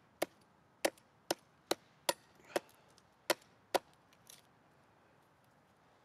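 Spyderco K2 Farid folding knife blade chopping into a wooden stick to carve it: about eight short, sharp cuts at roughly two a second, stopping after about four seconds.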